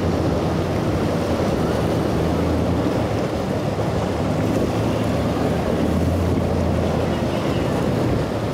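Twin outboard motors on a Sea Fox center-console boat running steadily through choppy inlet water, a low engine drone under the wash and splash of waves, with wind buffeting the microphone.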